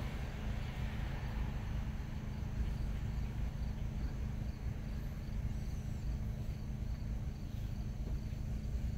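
Steady low rumble of an idling car, heard from inside the cabin, with faint, regular chirping of crickets outside, about two chirps a second.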